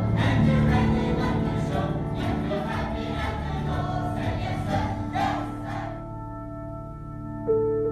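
Music with a group of voices singing. About six seconds in the singing stops and only sustained ambient music tones remain, with a new held note coming in near the end.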